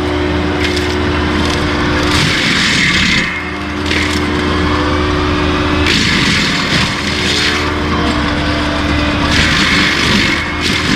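Skid steer engine running steadily while its forestry mulcher head grinds stumps and debris, with harsh grinding and chipping that comes and goes in stretches of a second or more.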